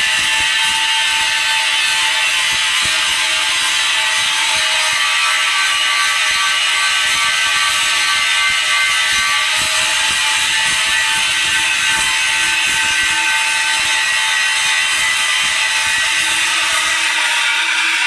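Pipe-welding arc burning steadily, a continuous dense crackle with a faint steady buzz under it.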